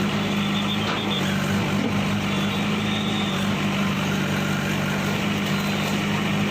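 Bulldozer's heavy engine running at a steady pace.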